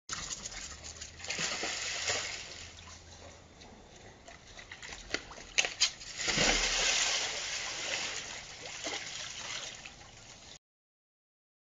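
Water splashing and sloshing in a hot tub: a splash about a second and a half in as a puppy falls in, then two sharp knocks and the loudest splash about six seconds in as a man steps into the water, which keeps sloshing around him and then cuts off suddenly near the end.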